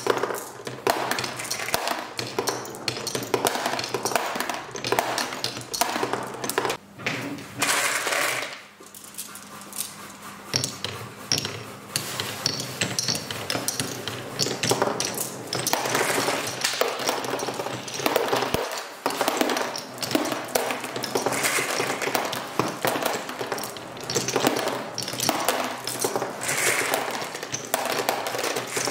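Marbles rolling and clattering down a wooden Quadrilla marble run, a dense run of quick clicks and pings as they hit the wooden track, the spiral and each other. It thins out for a few seconds about a third of the way in, then picks up again.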